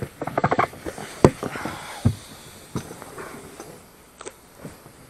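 Oars and gear knocking and clattering in an inflatable boat while rowing: a quick run of clicks, then a few sharp knocks about a second and two seconds in.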